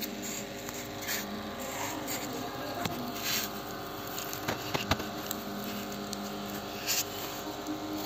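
Steady motor hum made of several tones, with a few short hisses and some faint clicks.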